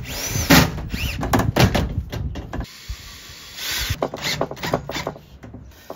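Cordless drill-driver run in several short bursts, its whine rising and falling each time, among knocks and rattles from the metal door panel as scrap pieces are fitted to its bottom edge.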